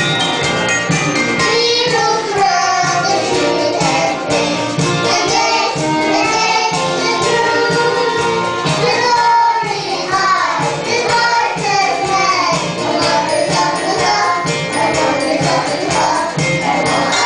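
Children's choir singing a Christmas song into handheld microphones over instrumental accompaniment.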